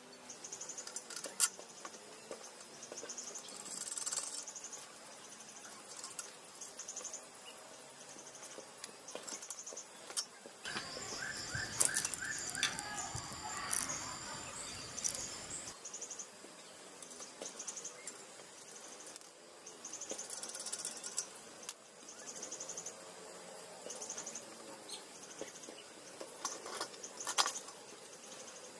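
Insects chirping high in a steady run of short pulses, repeating about twice a second, with a few light clicks and knocks of steel parts and bolts being handled, the loudest about twelve seconds in.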